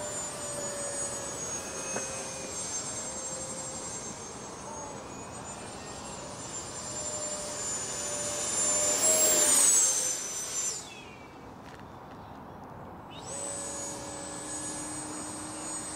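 Electric ducted fan of a Freewing L-39 RC jet whining in flight, growing louder to a peak about nine to ten seconds in. The whine stops abruptly just before eleven seconds and comes back about two seconds later.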